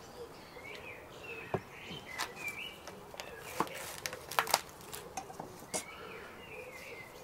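A kitchen knife cutting cress on a wooden chopping board: a handful of sharp taps of the blade on the board, the loudest two close together about four and a half seconds in. Birds chirp in the background.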